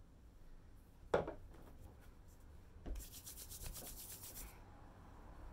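A light knock about a second in and a smaller one near three seconds, then about a second and a half of brisk rubbing: hands spreading skincare essence.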